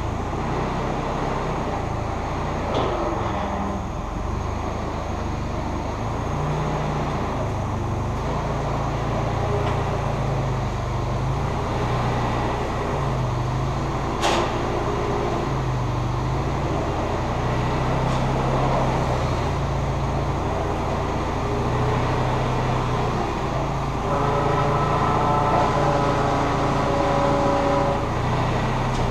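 Propane forklift's engine running steadily, its low pitch rising and falling as it is driven. A single sharp click about halfway through, and a higher whine joins near the end.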